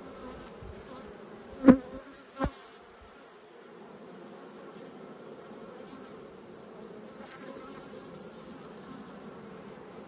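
Honeybees humming steadily around an open, well-populated Langstroth hive. About two seconds in come two sharp knocks, a loud one and then a softer one less than a second later.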